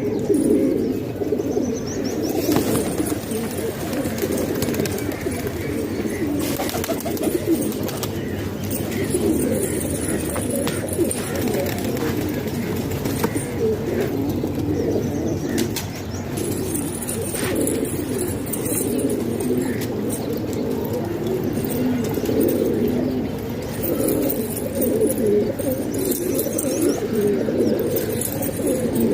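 A flock of domestic pigeons cooing together, many low coos overlapping into a steady murmur, with a few light clicks.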